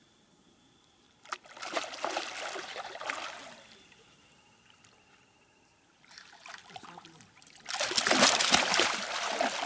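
Water splashing in two bursts: one about a second in, and a louder, longer one near the end.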